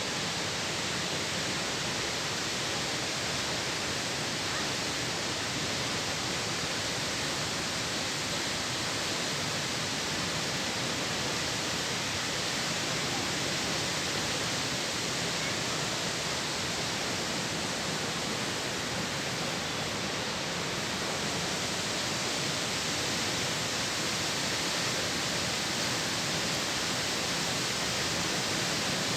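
Steady, even rush of water pouring down the Croton Dam spillway, with no change throughout.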